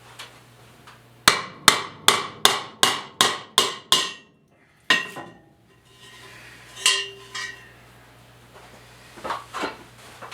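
Hammer blows on wood knocking loose a plywood plate that is partly glued to a floor joist: a run of eight quick, ringing strikes about three a second, then a single strike, then a few lighter knocks.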